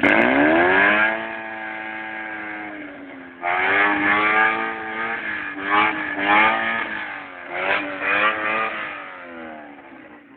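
Car engine revving through its exhaust. It drops from high revs in the first second and holds a steady lower speed, then is blipped up and down several times before letting off near the end.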